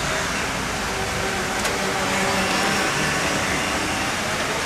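Steady rushing noise with no clear single source, with a single faint click about two seconds in.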